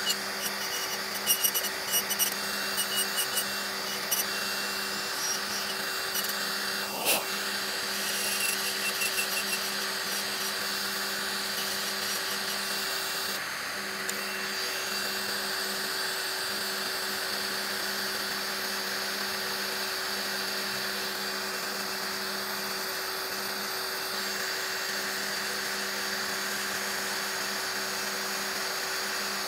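Electric nail drill running at a steady speed, its cone bit filing gel off a fingernail for a fill-in gel removal. It makes a constant whine, with scattered ticks in the first several seconds and one sharper click about seven seconds in.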